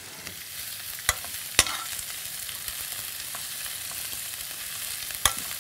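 Mung bean sprouts sizzling in hot oil in a frying pan over high heat, a steady hiss, with three sharp clicks of metal tongs against the pan as the sprouts are turned.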